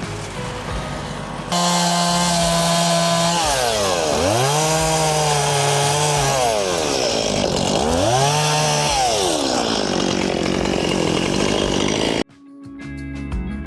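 Two-stroke chainsaw running hard, its engine pitch dropping low and climbing back up twice as it is throttled down and revved again. It cuts off abruptly near the end, with background music before and after it.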